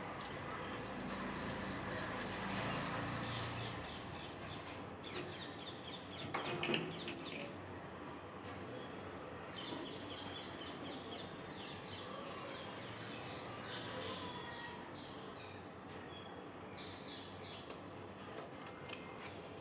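Birds chirping in quick repeated series of short high notes, with a single sharp knock about six and a half seconds in.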